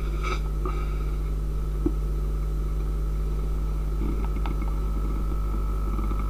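Steady low hum made by the pulsating light of a modulated LED floodlight striking a material: the photoacoustic effect, the light heating it so that it expands and contracts. A faint click comes about two seconds in, and a higher faint tone grows stronger about four seconds in.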